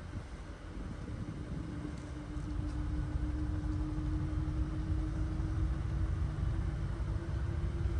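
Motor vehicle running: a steady hum that rises slightly in pitch over a low rumble, growing louder about two and a half seconds in.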